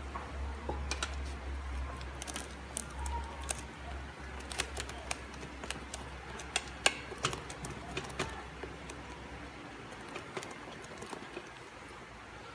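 Irregular light clicks and taps as a block of instant noodles is pressed down into simmering broth in a metal cooking pot, over a low steady hum that stops near the end.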